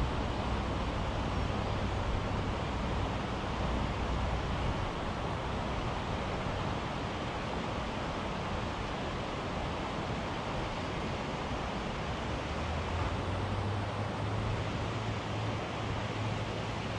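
Steady rush of flowing river water, with a low wind rumble on the microphone in the first few seconds and again near the end.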